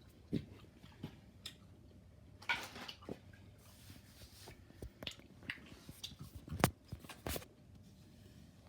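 Small hard objects handled on a toy gumball machine bank: scattered light clicks and knocks, a short rustle about two and a half seconds in, and two louder clacks near the end.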